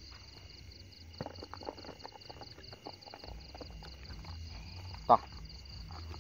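A steady, high pulsing insect trill of night crickets, about four pulses a second, with rustling and light clicks of plants and the trap pole about a second in. A single short, sharp sound about five seconds in is the loudest thing.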